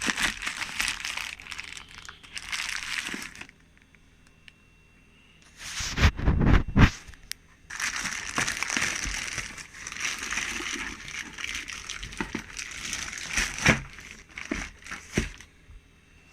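Packaging being opened by hand: crinkling and rustling. After a short pause there is a louder burst of handling with knocks about six seconds in, then more crinkling.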